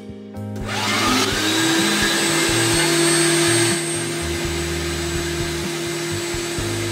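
Electric meat grinder starting up about half a second in, its motor whine rising and settling to a steady pitch as it runs grinding boiled eggs; the sound drops a little near four seconds in.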